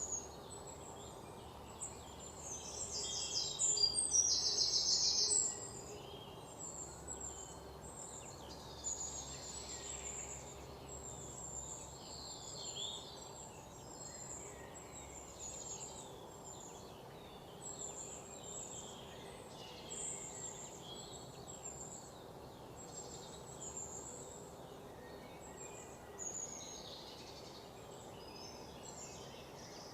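Many birds chirping in a forest, short high-pitched calls over a steady background hiss. One loud, rapid trill of fast repeated notes sounds from about two and a half to five and a half seconds in.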